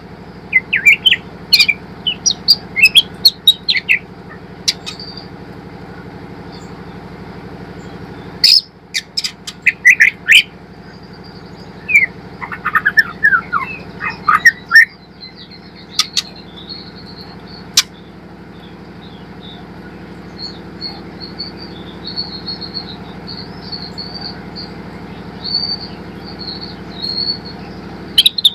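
Young white-rumped shama (murai batu) singing in scattered bursts of quick chirps, whistles and sharp clicks, then a softer, high twittering warble in the second half, over a steady low hum.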